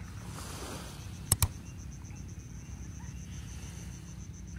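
Quiet outdoor ambience: a fast, even insect trill high up over a steady low rumble, with two sharp clicks close together about a second in.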